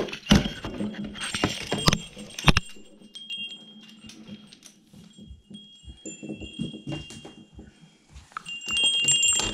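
Metal wind chimes ringing, several high tones overlapping and dying away, then struck again near the end. Sharp knocks and bumps come over the first two or three seconds.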